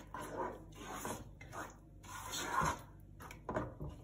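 Wooden spatula stirring a thick yogurt-and-spice marinade in a metal cooking pot: irregular swishing strokes, about one a second.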